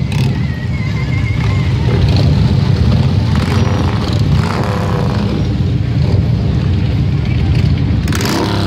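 A procession of motorcycles riding slowly past, many engines at once making a steady low rumble.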